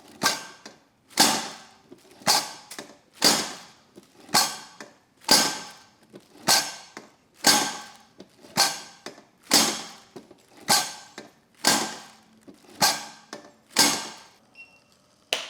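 Rhythmic strokes of hands-on soft-tissue treatment on the body, about one a second, each starting sharply and fading over about half a second.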